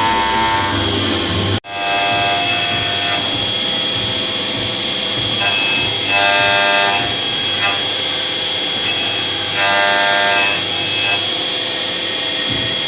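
CNC machine tool running, with a steady high-pitched whine and a motor tone that comes and goes several times. The sound cuts out abruptly for a moment about a second and a half in, then resumes.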